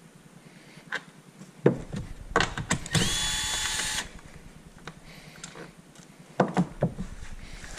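Compact cordless impact driver with a socket running for about a second as it spins out a 13 mm bolt holding the front trunk tub. A few clicks and knocks come before and after, from the socket going onto the bolt and the tool being handled.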